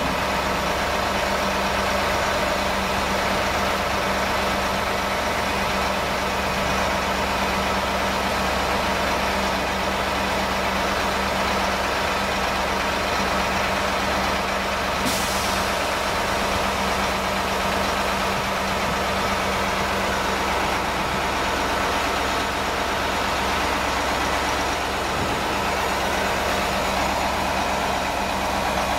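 Kamaz 43118 truck's diesel engine running steadily while it powers the IM-77 loader crane's hydraulics as the crane moves a load. A short hiss sounds about halfway through.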